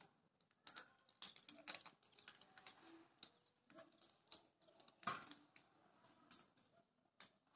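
Irregular light taps and clicks, one or two a second, the sharpest about five seconds in: a pigeon pecking and stepping on a wooden sill.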